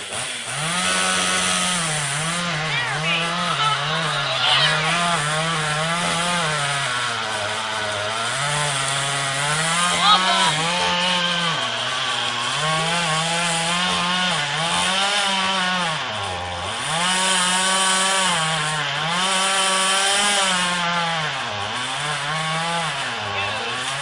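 Chainsaw running throughout, its engine note rising and falling over and over as it is revved and pulled down under load in a cut, dipping deeper twice in the second half.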